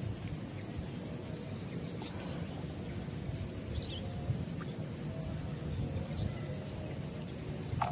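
Rice-field ambience: wind rumbling on the microphone, a steady high-pitched insect drone, and a few faint, short bird chirps.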